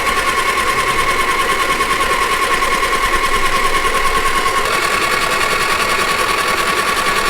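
A Sea-Doo engine being spun over by its electric starter: a steady, fast-pulsing whine that rises slightly in pitch a little past halfway. Water is being cranked out of the engine, which the owners believe was flooded when the craft sank.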